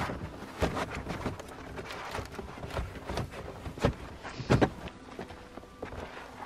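Reflective window shades being handled and fitted into a minivan's windows: rustling and crinkling of the foil material, with irregular knocks and taps as they are pressed into the frames, the loudest a little past halfway.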